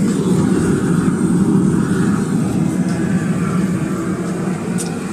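Blacksmith's forge running with its air blast, a steady low rushing noise.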